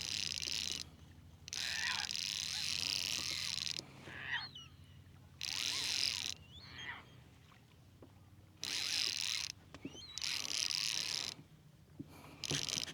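Fly reel, a Nautilus CCF-X2, being cranked in quick bursts to take in line on a hooked redfish: about six whirring runs of one to two seconds each, separated by short pauses. Faint bird chirps sound in the gaps.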